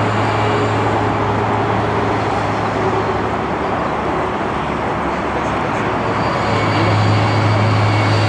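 Boeing 747-8's four GEnx turbofan engines on landing approach: a steady broad jet roar with a deep hum underneath, growing louder about six and a half seconds in as the aircraft reaches the runway.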